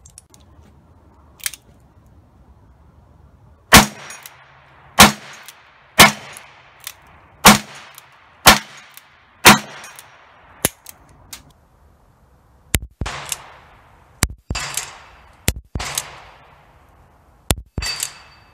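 Ruger Blackhawk .357 Magnum single-action revolver firing .38 cartridges: six loud shots about a second apart, each with an echoing tail, emptying the cylinder. A few light clicks follow, then a further string of quieter shots, some with a metallic ring after them near the end.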